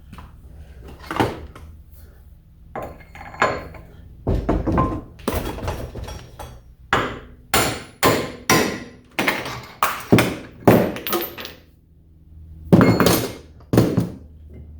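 Hammer striking a punch to drive a wheel bearing out of a heated dirt bike wheel hub: a few blows, then a run of about two metallic strikes a second, with two last blows near the end.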